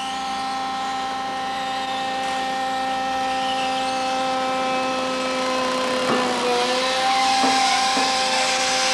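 Hydraulic power unit of a TDM-20 tire compactor whining steadily as its cylinder compresses a stack of 20 car tires. The pitch dips briefly about two-thirds of the way through, and a hiss grows louder near the end as the compaction goes on.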